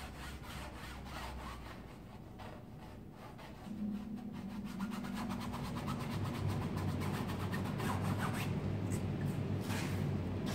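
A paintbrush scrubbing paint onto a large canvas: quick, repeated scratchy strokes of the bristles rubbing the surface. A low steady hum comes in about a third of the way through.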